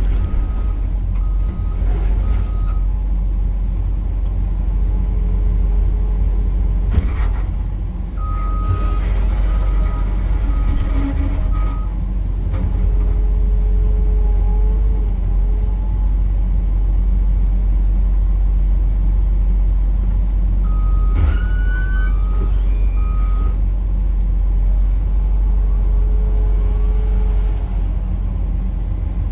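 Excavator's diesel engine running steadily while its travel alarm beeps in three separate spells as the tracks move. A short high squeal comes once, about two-thirds of the way through.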